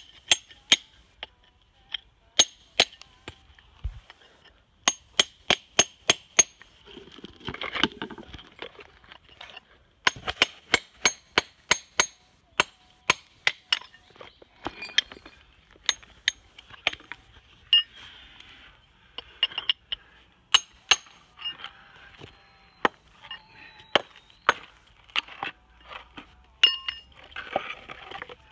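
Raw Japanese natural whetstone (Kyoto sunaita) struck again and again with a square-edged hammer: sharp clinking strikes with a high ring, in quick runs of several a second with short pauses, and a brief rough crumbling sound about eight seconds in and again near the end. The strikes sound the stone out by ear and split it where its layers are weakly bonded.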